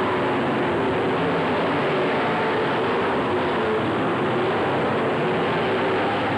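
V8 engines of late-model race cars running around the oval, heard as one steady, blended engine drone with no single car standing out.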